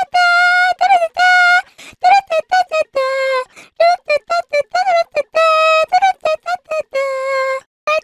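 The 'anime girl' singing meme: a very high-pitched girl's voice singing unaccompanied, quick short notes broken by about five longer held notes.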